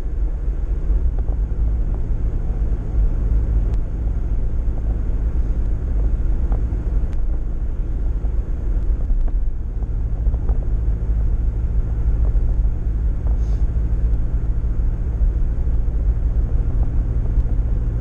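A vehicle driving steadily at road speed, with engine, tyre and wind noise, recorded by a camera mounted outside on the hood. The sound is a continuous low rumble that does not change.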